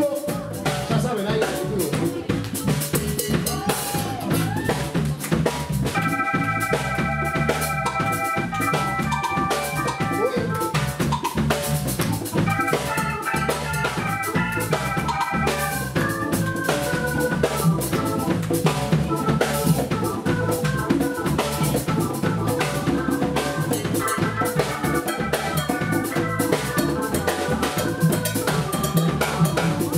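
A live Latin band playing an instrumental passage: drums and percussion keep a steady beat, with held chords and a melodic line over it in parts.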